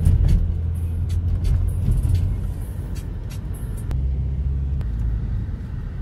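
Car engine and road noise heard from inside the cabin while driving, a steady low rumble whose engine note shifts about four seconds in.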